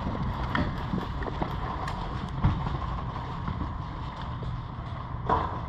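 Steady low rumble of wind on the microphone, with scattered faint clicks and a couple of louder knocks, one about halfway through and one near the end.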